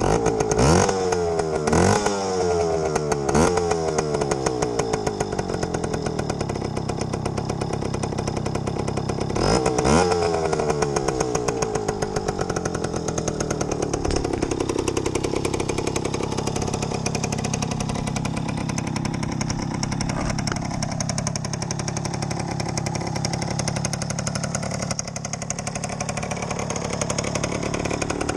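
Yamaha YG5T Trailmaster's small two-stroke single-cylinder engine comes to life at the start and is revved in three quick blips, each rising and dropping back. It is blipped once more about ten seconds in, then settles to a steady idle.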